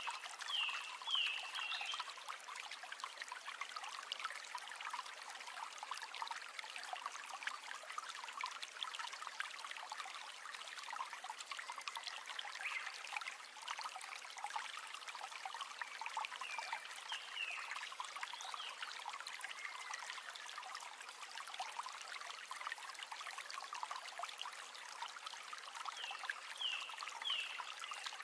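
River water running and trickling, a steady babble of flowing water. Three brief clusters of short high chirps sound over it: near the start, a little past the middle and near the end.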